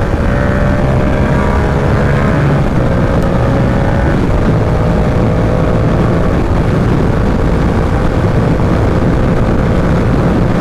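Yamaha R7's 689 cc parallel-twin engine running under way, its note climbing slowly over the first couple of seconds and then holding steady, under loud, steady wind noise on the rider's microphone.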